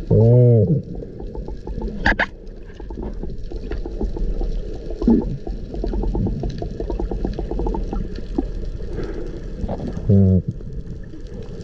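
Underwater sound on a dive camera: a constant low rumble with fine crackling, broken by two loud moaning tones, each about half a second long and arching up and down in pitch, one just after the start and one about ten seconds in.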